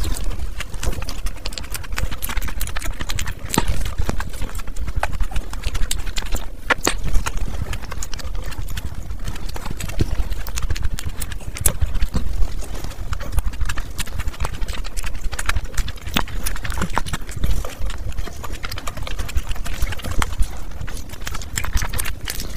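Chewing and lip-smacking of two people eating soft-bun burgers: a dense, irregular run of wet mouth clicks and smacks.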